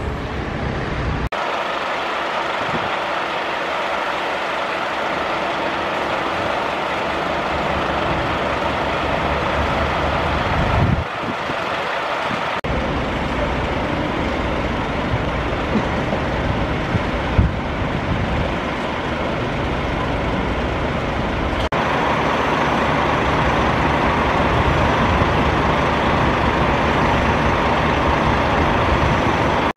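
Diesel engines of parked fire engines and ambulances running steadily at idle, a continuous mechanical drone. It changes abruptly a few times as the shots are cut.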